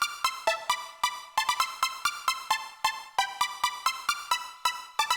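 Electronic music: a quick, even run of sharp-attack synthesizer notes, about four to five a second, each dying away quickly, played back through a 1995 Mission 761i bookshelf loudspeaker.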